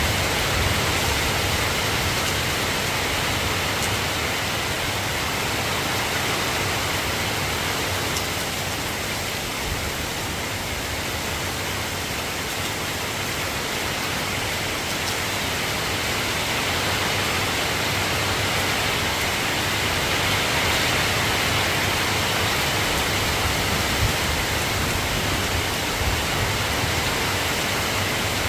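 Steady soft rain falling, an even hiss with no separate drops or thunder standing out.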